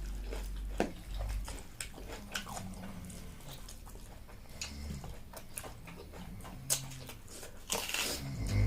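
Close-up mukbang eating sounds: biting and chewing, with irregular wet clicks and smacks of the mouth and a louder burst near the end.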